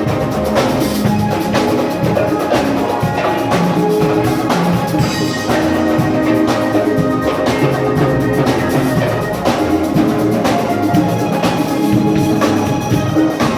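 A band playing loud music: sustained pitched instrument notes over regularly repeated drum hits.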